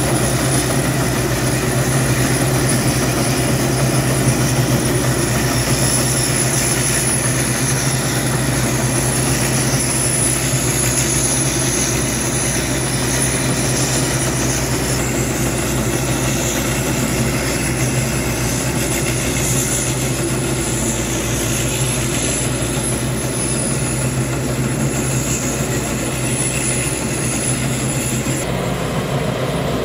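Rice combine harvester running steadily as it cuts and threshes rice, its engine and threshing gear giving a continuous low drone. A thin, high, steady whine runs over it throughout.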